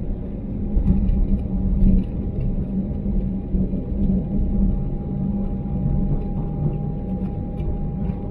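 Cabin noise of an Airbus A320neo heard from a window seat beside its Pratt & Whitney geared-turbofan engine: a steady low rumble with a constant high whine as the aircraft rolls along the ground, with a few light knocks.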